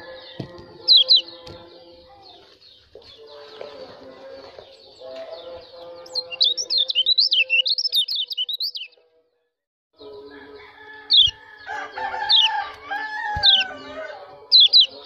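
White-eye (pleci) giving sharp, steeply falling 'ciak' chirps and a fast warbling run, the call used to stir a white-eye of the opposite sex into breeding excitement. Lower steady and gliding notes sit beneath the chirps, and the sound cuts out completely for about a second near the middle.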